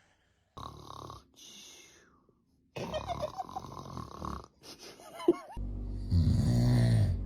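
A man snoring in uneven rasping breaths, several separate snores. Music with a steady low drone comes in about two thirds of the way through.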